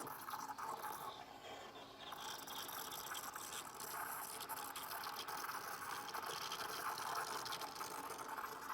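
Swan SK22110BLN espresso machine at work, with a steady hiss and gurgle of liquid.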